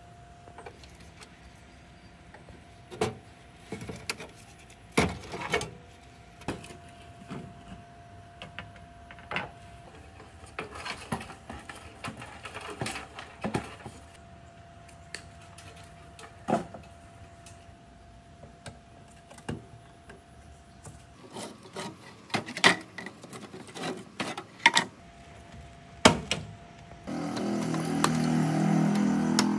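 Scattered clicks, knocks and scrapes of hand tools and loose parts on a rusted steel computer case as it is taken apart. Near the end there is a louder, steady scrape of about two seconds as pliers work at the steel case.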